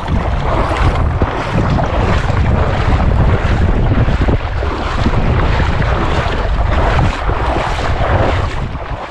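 Loud, steady wind buffeting the microphone, a dense rumble with hiss above it, easing near the end.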